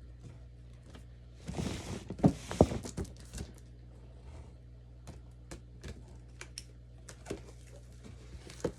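Cardboard box and packing being opened and handled: a burst of rustling with two sharp thumps about two seconds in, then scattered light knocks and clicks.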